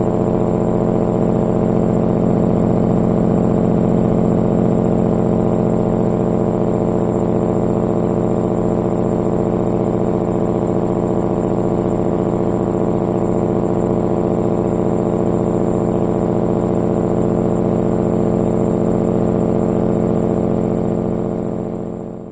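Caterpillar 3406E diesel engine in a Kenworth W900L idling steadily through a Pittsburgh Power muffler in its loud configuration and 5-inch stacks, fading out near the end.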